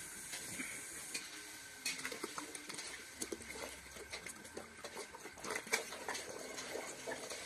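Water glugging and splashing out of an upturned 2-liter plastic bottle into a basin, with irregular clicks and crackles of the plastic bottle.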